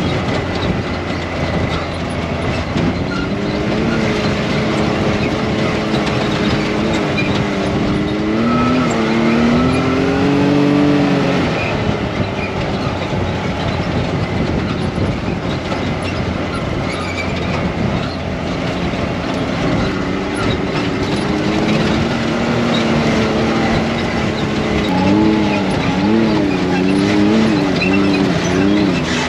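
Car engine and road noise heard from inside a moving car's cabin: a steady rumble with an engine note that holds level for a while, then rises and falls as the car speeds up and slows.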